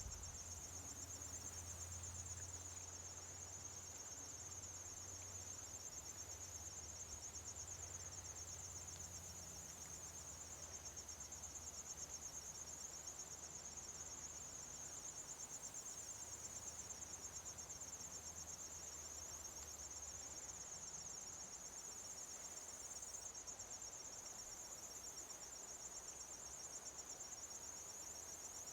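A faint, steady high-pitched insect chorus trilling without a break, with a soft low rumble underneath that fades out about a third of the way through.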